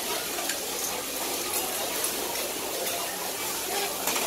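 Food sizzling on a hot flat griddle, a steady hiss, with a few light clicks of metal tongs.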